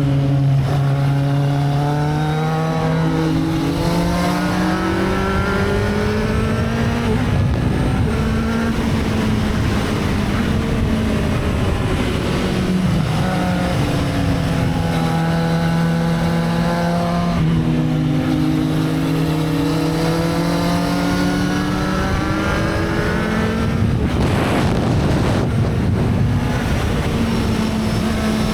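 Sport motorcycle engine on the road, its pitch rising and falling again and again as the bike speeds up and slows down. A brief rush of noise comes about 24 seconds in.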